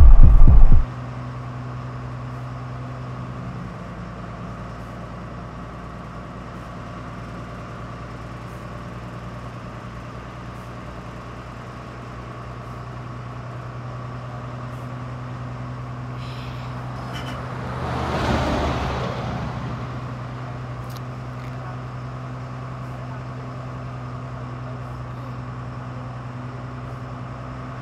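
Bus engine running with a steady hum, heard from inside the bus. A loud low thump comes right at the start, and about two-thirds of the way through a whoosh rises and falls away.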